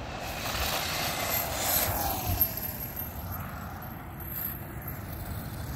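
Redcat Volcano brushless RC car on a 4S battery driving past on asphalt: the motor whine and tyre hiss build up and are loudest about two seconds in. The whine drops in pitch as the car goes by, then picks up again more faintly.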